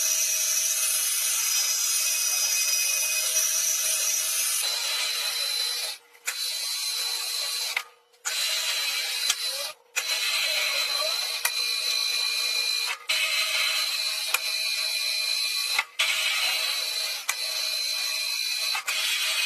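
A machine running with a steady high whine over hiss, cut by about five brief sudden dropouts.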